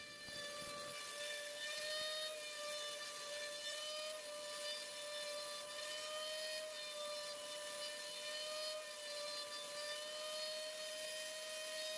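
CNC router spindle running at high speed, a steady high whine, as the bit cuts slots into an MDF panel.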